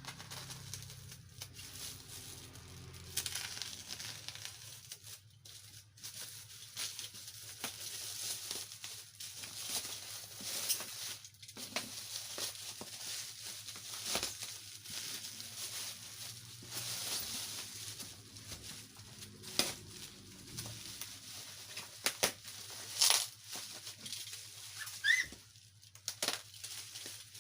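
Plastic packaging crinkling and tearing by hand as a delivered parcel is unwrapped, with scattered sharp knocks and a brief squeak near the end.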